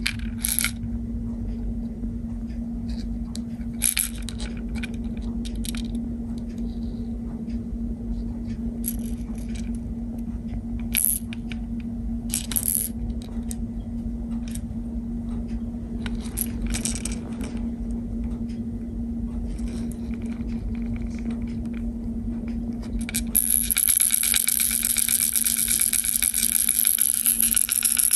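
Rattle inside a Megabass Taco-Le Shake 90 octopus lure, clicking now and then as the lure is tilted in the hand. It then breaks into a loud, continuous rattle as the lure is shaken for the last few seconds. A steady low hum runs underneath.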